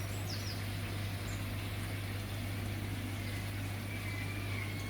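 Steady electrical hum from koi pond equipment such as pumps and filters, over a constant hiss of circulating water.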